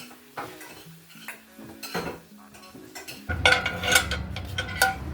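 Dishes and cutlery clinking and knocking, several sharp ringing clinks, over soft background music. About three seconds in, a loud low steady rumble starts underneath.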